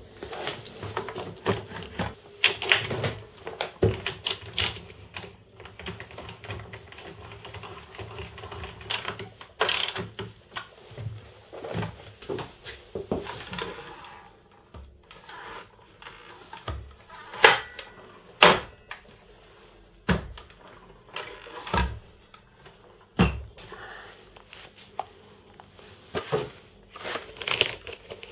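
Irregular knocks, clunks and clicks of metal hardware and wood being handled and fitted, as a hinged birch-ply saw arm with door hinges is bolted together and set up on a workbench.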